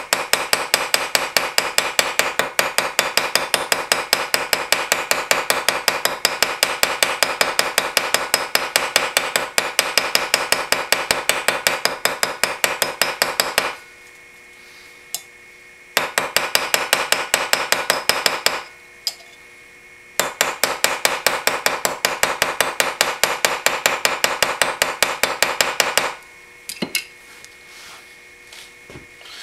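Small hammer tapping rapidly and lightly on the end of a straight razor's pivot pin, peening it over to tighten the scales. The taps come several a second in three long runs with two short pauses, then stop.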